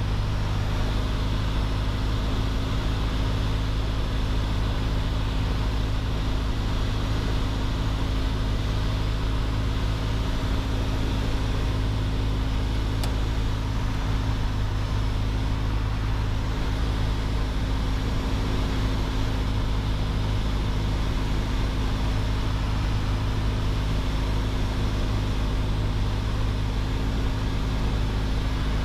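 Piper PA-28 Archer's four-cylinder Lycoming piston engine and propeller running steadily, heard inside the cabin as an even, low drone.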